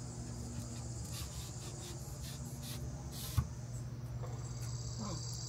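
Sections of a sectional stand-up paddle shaft being handled and fitted together: light scraping and ticking, with one sharp click about three and a half seconds in.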